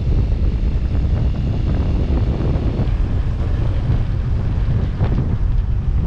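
Heavy, steady wind buffeting the microphone while riding, with a vehicle's running noise beneath it.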